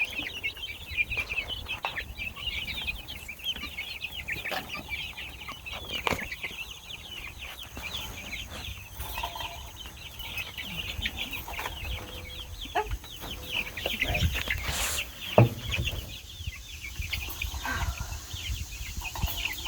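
A brooder full of young chickens peeping constantly in rapid high chirps, with a few sharp knocks and a brief rustle among them.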